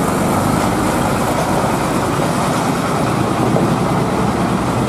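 Diesel engine of a large intercity coach running close by, a steady, loud engine noise with no breaks.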